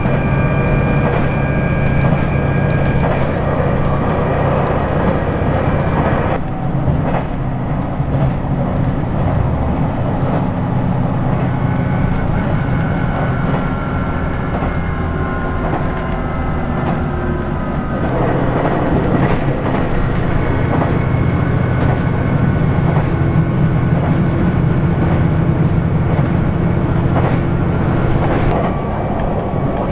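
Cabin sound of a JR Shikoku 2000 series diesel railcar under way: a steady engine drone from under the floor with whining tones and scattered rail-joint clicks. The sound changes abruptly about six seconds in and again around eighteen seconds in.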